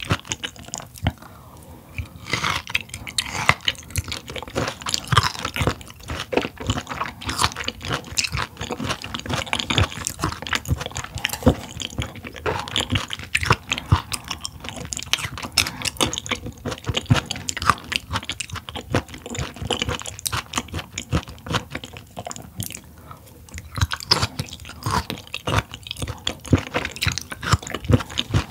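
Close-miked chewing of raw mullet gizzard dressed in sesame oil: a dense run of short, crisp clicks from the firm, chewy flesh, easing off briefly about a second in and again near the end.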